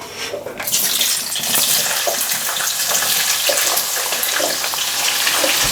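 Tap water running steadily into a pot, starting suddenly about a second in, while rice is washed in it.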